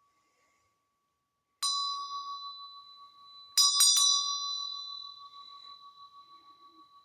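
A ritual bell is struck once, then three times in quick succession about two seconds later, ringing on with a wavering, slowly fading tone.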